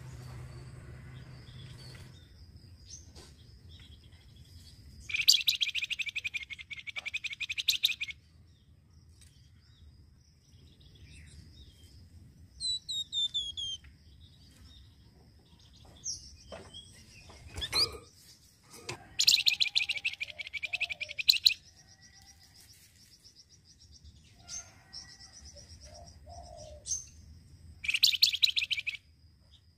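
Caged flamboyan songbird giving a chattering call: three long bursts of a fast, buzzy rattling trill, loud and even, with a few short falling chirps and single notes between them. A faint, steady high-pitched tone runs under it.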